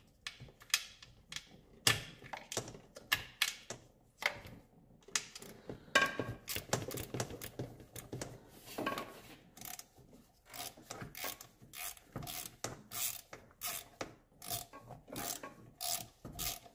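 Hand socket ratchet clicking in short bursts as the bolts holding the thermostat housing are worked loose, with small metal taps and knocks between. From about ten seconds in, the clicks come evenly, about two a second.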